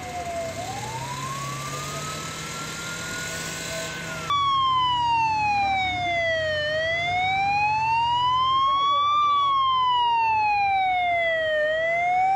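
Emergency-vehicle siren. A fainter tone climbs slowly over a low steady hum, then about four seconds in a loud wail takes over, sweeping slowly up and down, about five seconds per full cycle.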